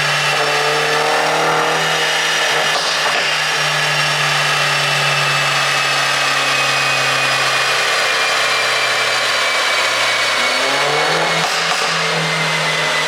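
Mercedes-Benz W213 E350 4Matic engine running steadily on a pop-and-crackle tune, its pitch easing slowly downward, then the revs rising again about ten seconds in.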